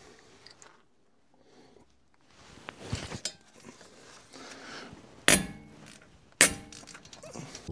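Metal tools being handled at a brake caliper: some scraping and rustling, then two sharp metallic knocks about a second apart, each ringing briefly.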